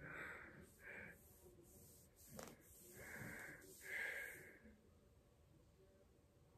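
Faint breathing close to the microphone: a few soft breaths in the first half, with one light tap about two and a half seconds in.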